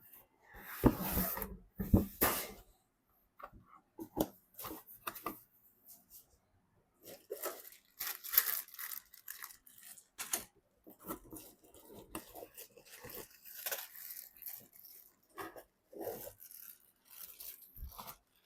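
Hands working on PC hardware: irregular scraping, rubbing and tearing-like rustles of plastic, with a few sharp clicks.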